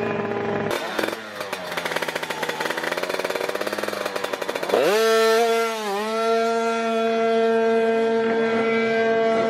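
Two-stroke sprint moped engine at the start line. It revs unevenly with a rapid, ragged pulsing, then about halfway through sweeps sharply up and holds a steady high-pitched note at high revs, dipping briefly once.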